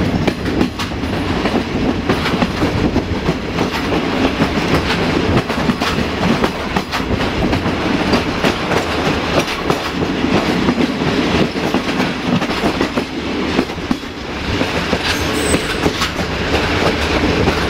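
Diesel-hauled passenger train running at speed, heard from one of its coaches: a steady rumble with the wheels clicking over the rail joints and a low steady hum underneath.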